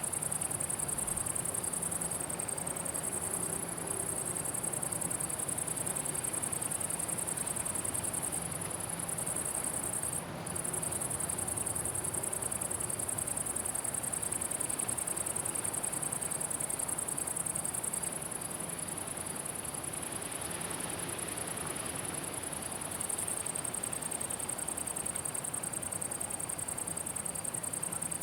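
Meadow insects stridulating in a dense, continuous high-pitched chirr. It drops out briefly about ten seconds in and thins for a few seconds past the middle.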